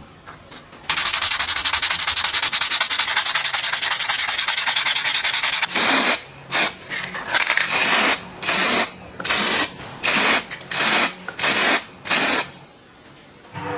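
A spray hissing: one long continuous blast of about five seconds, then a run of short bursts under a second apart.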